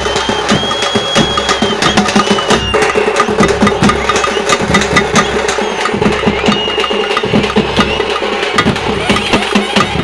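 Live festival drumming: a large bass drum and a small stick-played drum beat a fast, dense dance rhythm. A high steady tone is held over the beat a few times, each about a second long.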